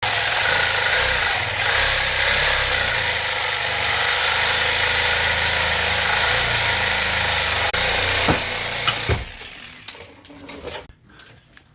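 A power tool running steadily, then stopping about nine seconds in, followed by a few light knocks.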